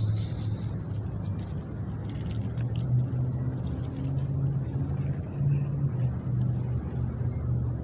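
Steady low engine rumble of a motor vehicle, with a wavering hum and a few faint clicks.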